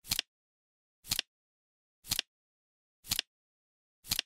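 Flip clock ticking over once a second: a short double clack of the flipping cards, five times, with dead silence between.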